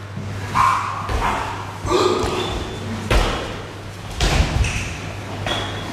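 Dancers' feet and bodies landing on a studio floor, a series of sudden thuds and slaps about once a second, echoing in a large room.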